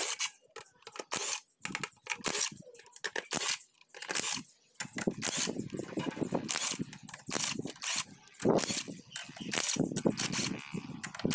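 Cordless power driver working the bolts out of the steel chain-case housing of a kuliglig hand tractor: a string of sharp metallic clicks and knocks, becoming denser and fuller from about halfway through.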